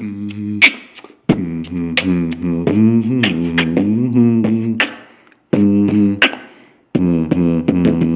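Human beatboxing recorded on a poor microphone: sharp percussive clicks and hits over a hummed bass line that bends up and down. It breaks off briefly twice in the second half.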